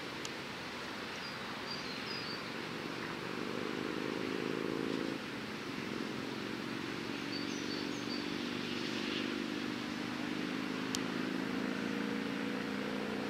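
Piper PA-28-161 Warrior III light aircraft taxiing, its four-cylinder Lycoming piston engine and propeller running at low power. The engine note changes abruptly about five seconds in, then runs on steadily.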